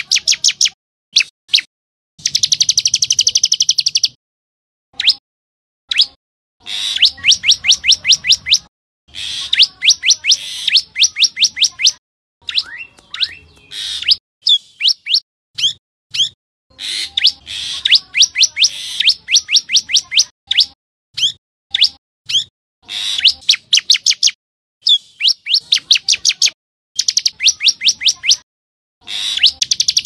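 Common tailorbird singing: quick runs of sharp, high repeated notes, several a second, each run lasting one to two seconds with short pauses between.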